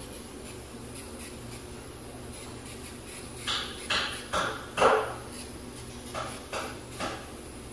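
Hammer striking a nail in the background: about seven uneven blows in two clusters, the loudest a little before the middle, as someone still learning to hammer.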